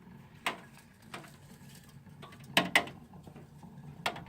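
Unplugged Fedders window air conditioner's fan coasting down, its loose fan and motor parts giving irregular clicks and knocks over a faint low hum. The loudest is a pair of knocks about two and a half seconds in.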